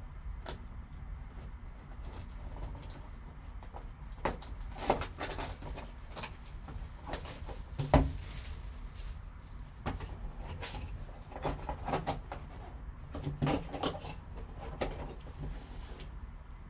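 Small clicks, taps and rustles of cardboard and plastic packaging as a sealed trading-card box is opened and the card is taken out, with one sharper knock about eight seconds in.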